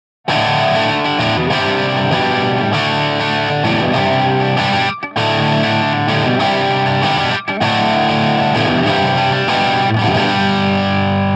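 Heavily distorted electric guitar, a Fender Stratocaster with Seymour Duncan Hot Rails pickups, played loud through a Hughes & Kettner TubeMeister tube amp into a Marshall cabinet and picked up by a Shure SM57 close on the speaker. A riff starts about a quarter second in and plays on with two short breaks, around five and seven and a half seconds in.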